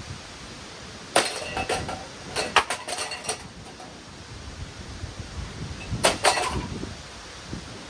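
Hunter Summer Breeze ceiling fan being smashed: its metal parts clank and rattle under blows, with one sharp hit about a second in, a clattering run of strikes around three seconds, and another ringing hit about six seconds in.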